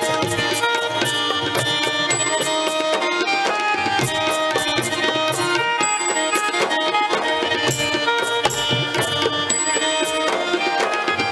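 Instrumental break in Indian devotional music: tabla playing a steady, quick rhythm under held melody notes from an accompanying instrument.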